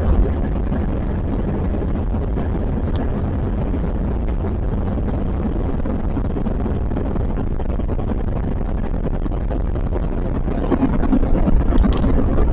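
Airbus A320-family jet heard from inside the cabin on its takeoff roll: a steady, loud engine and runway rumble that grows louder and rougher about ten seconds in, as the nose rises for liftoff.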